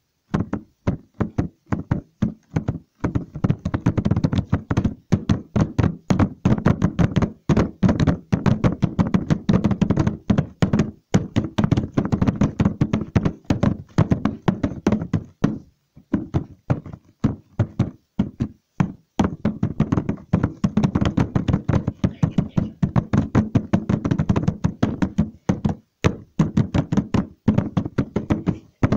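Fast, irregular tapping and knocking, many strokes a second, with a few brief pauses.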